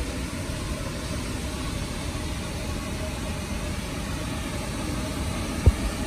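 Waterfall rushing over wide rocky cascades, a steady noise with no let-up. A short thump comes just before the end.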